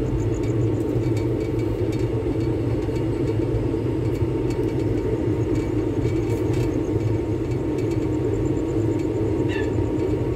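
Passenger train running along the track, heard from the open doorway of a coach: a loud, steady rumble of wheels on rails.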